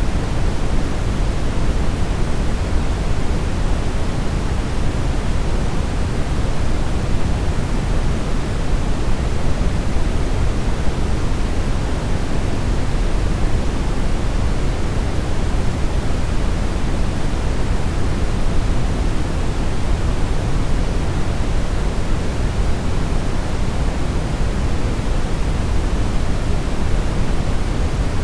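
Steady brown noise: an even, deep rushing hiss, heaviest in the low end and fading toward the highs, with no change throughout.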